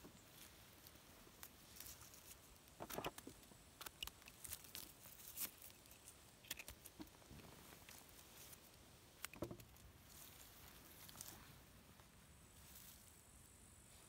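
Faint rustling and crackling of dry pine needles and forest-floor litter as mushrooms are picked and handled by hand: a scatter of small clicks and snaps, thickest in the first half, with one sharper snap about two thirds through.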